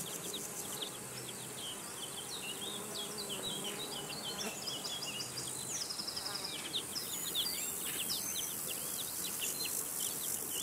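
Summer garden ambience: small birds chirping in many short, quick notes over a steady insect buzz, with a brief fast trill about halfway through.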